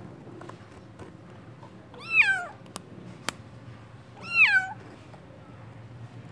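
Young kitten meowing twice, about two seconds apart, each call rising then falling in pitch. A single sharp click falls between the two calls.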